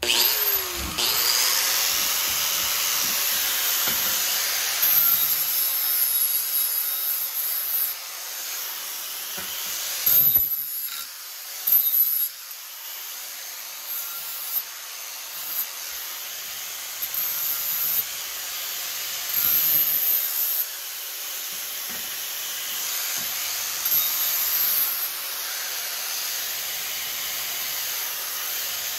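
A handheld power tool spins up and runs against the edges of a freshly cut faceplate, cleaning them up; its sound swells and dips as it is pressed into the work, with brief louder passes about ten and twelve seconds in.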